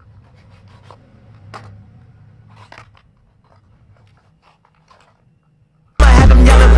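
A fidget spinner's box being opened by hand: faint, scattered clicks and crinkles of the packaging being handled. About six seconds in, loud hip hop music starts abruptly.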